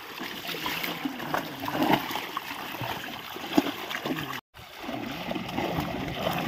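Many fish thrashing and leaping at the surface, trapped in a net being drawn in through shallow water: a constant churning splash with sharper slaps now and then. The sound breaks off for a moment about four and a half seconds in.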